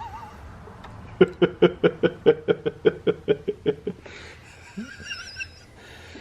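A person laughing in a quick run of about fourteen short pitched 'ha' bursts, about five a second, lasting nearly three seconds.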